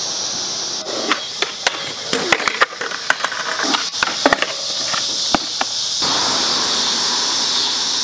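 Skateboard on concrete and a metal stair handrail: a run of sharp clacks and knocks as the board is popped, hits the rail and clatters down, stopping about five and a half seconds in. A steady hiss then takes over.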